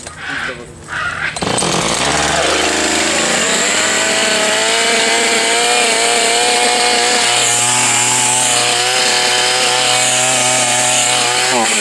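Gasoline chainsaw starting up about a second and a half in, revving and running steadily at high speed, likely cutting into the trunk of a downed tree. It drops back off near the end.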